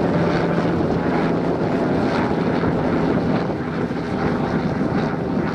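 Helicopter flying past overhead, its rotor and engine heard through wind noise on the microphone, with a steady low hum that drops away about a second and a half in.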